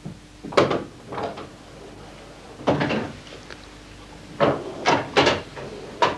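Pool balls being played: about seven short, sharp clicks and knocks of the balls striking one another and the cushions, with a small cluster about three seconds in and three quick knocks near the end.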